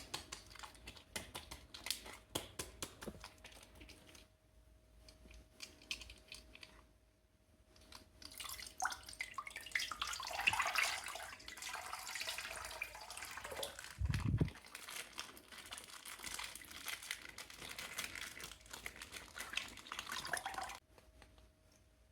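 Faint handling sounds of water and crinkling plastic, with scattered small clicks and a brief low thump about fourteen seconds in.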